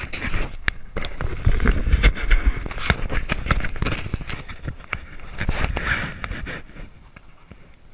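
Handling noise on a jostled camera carried on horseback: crackling, scraping and rubbing close to the microphone, with heavy low thumps. It is loudest in the first half and dies down near the end.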